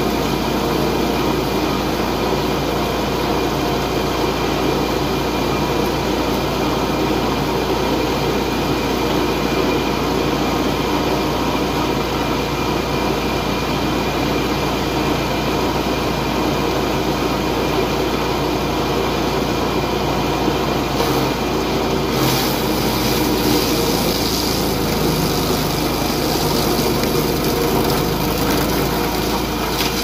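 Tow-behind wood chipper running steadily at working speed. About twenty seconds in, a rougher grinding noise joins the engine as branches are fed through and chipped.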